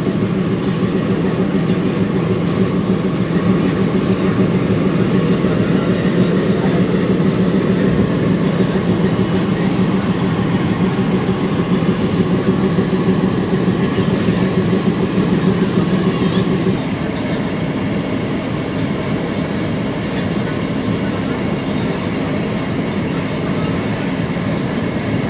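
ALCO diesel locomotive's engine running steadily at idle with a low, even hum, stepping down a little in loudness about two-thirds of the way through.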